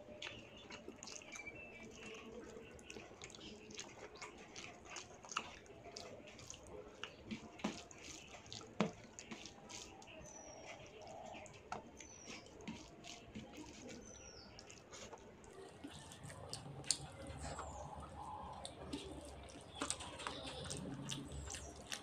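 A bare hand mixing and squeezing rice into curry gravy on a steel plate: soft wet squelching with many light clicks of fingers and rice grains against the metal.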